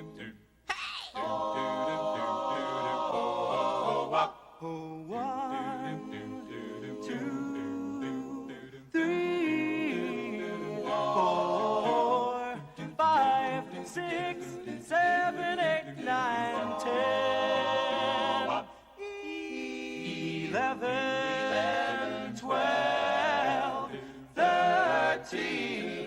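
Male doo-wop vocal group singing a cappella in close harmony, with held chords broken by short pauses.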